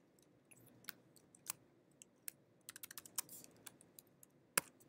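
Typing on a computer keyboard: scattered key clicks, a quick run of keystrokes about three seconds in, and one sharper key press near the end.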